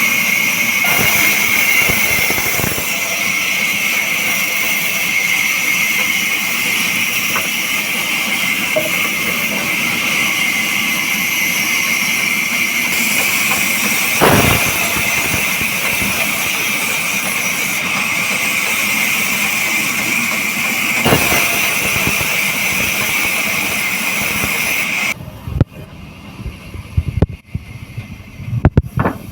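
Bandsaw cutting timber: a steady high whine and hiss that stops suddenly about 25 seconds in, followed by a few scattered knocks.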